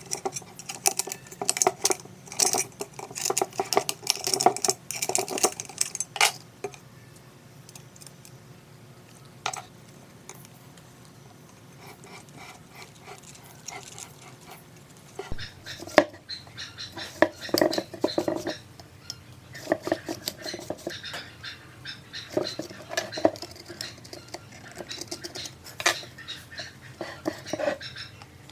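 Hard parts and hand tools being handled, with irregular clinks, taps and clatters. There are two busy spells with a quieter stretch between them.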